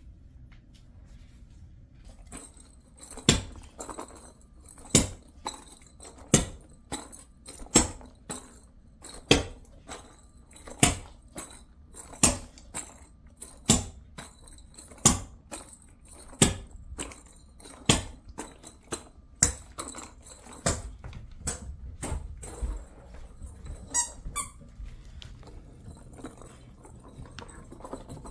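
A sharp click or tap repeated at an even pace, about once every second and a half, a dozen or so times, then a few less regular taps.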